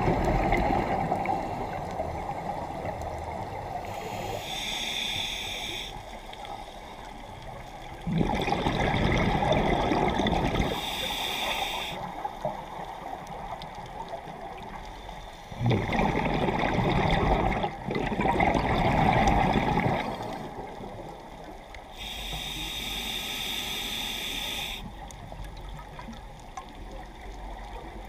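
Scuba diver breathing through a regulator underwater: a short hissing inhalation alternates with a longer, louder rush of bubbling exhalation, a few breaths in turn.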